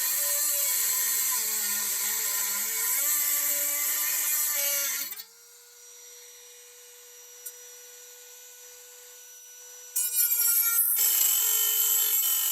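A small high-speed power tool cutting through a metal muffler bracket. It grinds loudly for about five seconds, runs free with a quieter steady whine for about five seconds, then bites into the metal again about ten seconds in.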